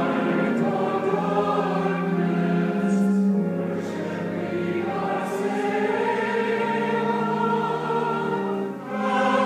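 Recorded choral music playing back: a choir holding sustained chords that change every second or two.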